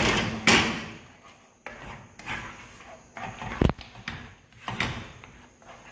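A spoon stirring thick tomato sauce in a frying pan, scraping against the pan in several short strokes, with one sharp knock about three and a half seconds in.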